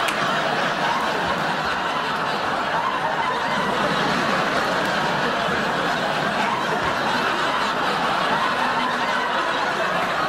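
A large audience laughing steadily, many voices blending into one continuous wash of laughter.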